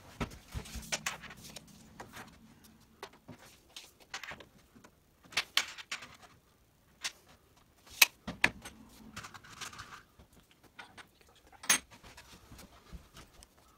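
Scattered sharp clicks and light knocks of hand-work inside a wardrobe carcass: a tape measure and tools handled against the panels, the loudest clicks about 8 s in and near the end.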